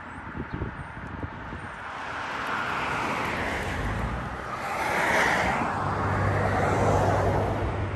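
Road traffic: cars passing on a multi-lane road, their tyre and engine noise swelling and fading, loudest from about five to seven seconds in. A little wind buffets the microphone in the first second.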